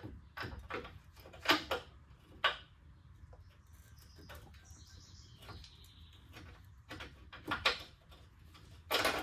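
Metal clicks and clinks of a new rear shock absorber being worked onto its lower mount and its bottom bolt pushed through. There are a few sharp clicks early on, the loudest about one and a half seconds in, then a quieter stretch, then more clinks near the end.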